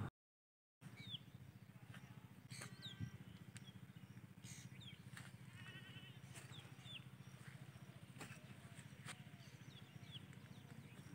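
Faint rural outdoor ambience. Scattered short bird chirps and a quick trill about halfway through sit over a low steady hum, after a brief dropout at the very start.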